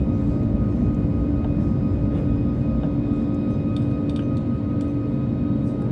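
Airliner cabin noise in the climb after takeoff: the steady low rumble of the Airbus A340-600's four Rolls-Royce Trent 500 engines and the airflow over the fuselage, with steady droning tones over it.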